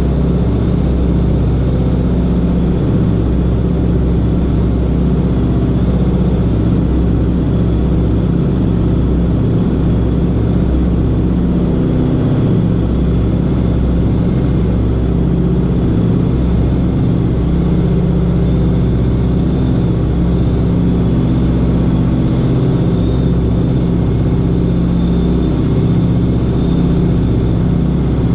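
A Beech 18's twin radial piston engines drone steadily at climb power, heard from outside on the wing with air rushing past.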